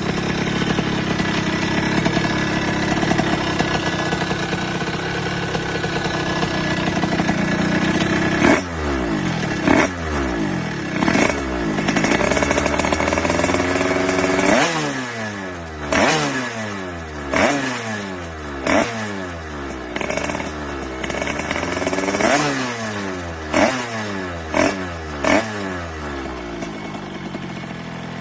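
A 49cc two-stroke motorcycle engine held at high revs, then revved in a string of sharp throttle blips from about eight seconds in. Each blip's pitch falls away quickly, coming roughly once every second or so.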